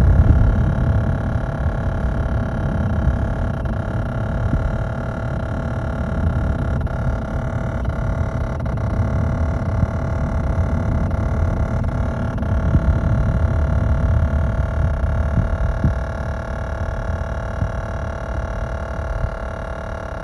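A 2016 Honda Odyssey making an unexplained weird noise: a steady low rumble with several steady whining tones held above it, unchanging throughout.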